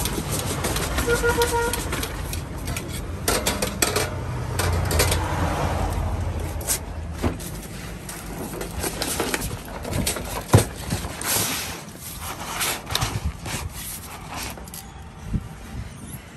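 Sheets of sticker vinyl handled and rustled on a workbench, with scattered clicks and knocks and one sharp knock about ten seconds in. A low traffic-like hum sits under the first half, and a brief beep sounds about a second in.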